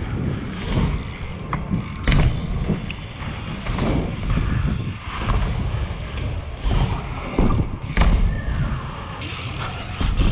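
BMX bike riding over wooden ramps and a hard floor: a steady rolling rumble of tyres and wind on a helmet-mounted microphone, broken by sharp knocks and thuds from landings, the loudest about two seconds in and about eight seconds in.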